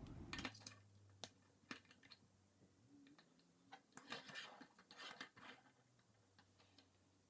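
Faint, scattered clicks of plastic K'NEX rods and connectors being snapped together and set down on a tabletop.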